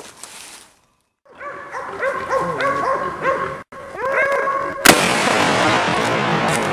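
Bay dogs barking repeatedly at a cornered wild hog, then a single loud shot from a .44 Magnum lever-action rifle near the end, followed by a loud, steady noisy din.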